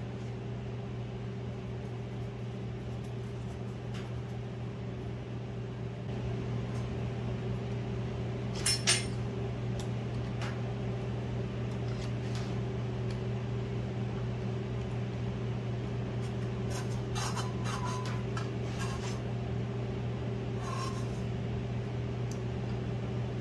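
Steady hum of an air conditioner running in a small garage. A sharp double clack comes about nine seconds in, and a scatter of lighter clicks and taps from handling tools and parts comes later.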